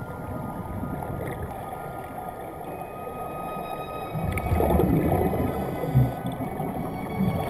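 Muffled underwater bubbling and rumbling from the air bubbles streaming out of air-supplied diving helmets, heard with the camera underwater. It swells louder about four seconds in, with a short thud a second or so later.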